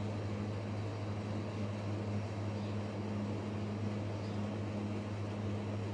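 Steady low mechanical hum, like a running fan or appliance, with a fainter higher tone that comes and goes over a light background hiss.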